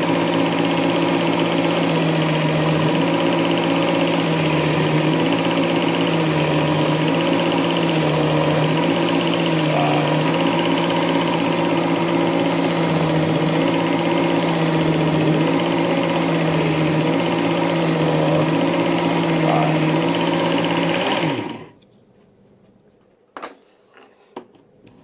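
WorkSharp Ken Onion Edition belt sharpener running with its blade grinder attachment and a medium-grit belt, grinding a knife edge. The motor's hum sags in pitch each time the blade is pressed to the belt and recovers between passes, with a rough grinding hiss on each pass. The motor switches off about 21 seconds in, followed by a few light clicks.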